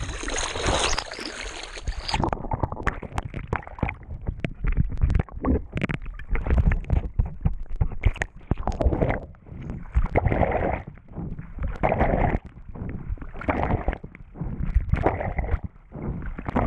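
Water splashing and sloshing against a surfboard and an action camera at the waterline as the board is paddled through small waves, with a gurgling rumble. In the second half the surges come about every second and a half, in time with the strokes.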